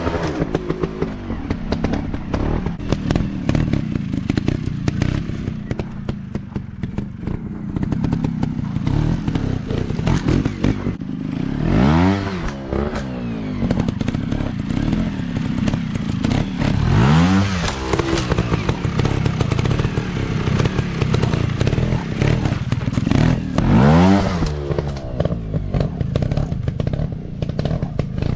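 Dirt bike engine running, revved up and back down several times, with a steady low rumble between the revs.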